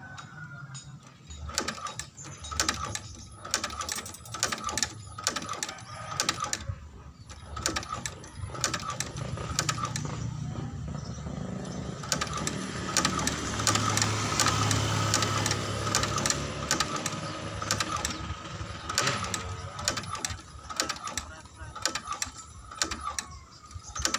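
Shoe-sole stitching machine working in bursts: a rapid clatter of needle strokes and clicks, running continuously with a low hum for several seconds in the middle.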